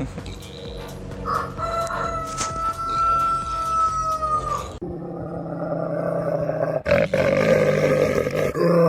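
Animal calls: one long, steady call of about three seconds, then louder, rougher calls.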